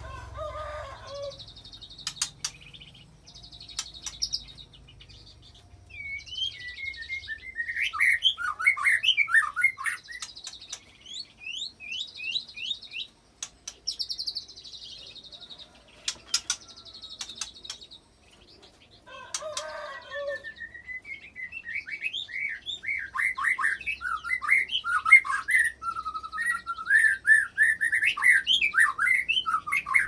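White-rumped shama (murai batu) singing in bursts of fast, varied mimicked notes, then a long unbroken rolling song from about 20 seconds on, its repertoire including cililin and canary mimicry. A few sharp clicks fall between the phrases.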